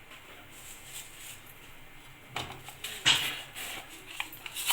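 Mustard seeds and urad dal going into hot groundnut oil in a pan: a few sharp clicks about two and a half to three seconds in, then a crackling sizzle as the seeds start to splutter.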